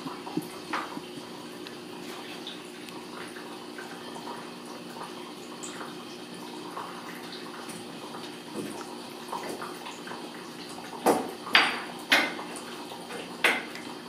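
Ragdoll kittens scuffling and wrestling on a rug among wooden chair legs: soft scattered taps and rustles, then a few sharp knocks in the last few seconds, over a steady low hum.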